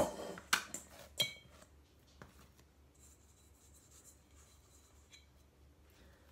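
A plastic dough scraper scraping and knocking against a stainless steel mixing bowl as bread dough is turned out, with a few sharp knocks in the first second and a half, one setting the metal bowl ringing briefly.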